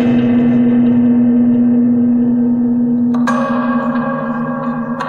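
Homemade cigar-box spring box, its metal springs played through a guitar amp: a long, low metallic ringing tone with overtones that fades slowly. A new pluck of a spring about three seconds in adds a brighter ringing on top, and another comes near the end.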